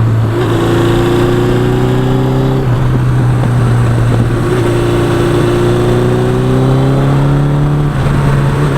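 1982 Suzuki GS1100E's air-cooled inline-four engine pulling under way, its pitch climbing steadily. It drops at a gear change about two and a half seconds in, then climbs again, with another small shift near the end.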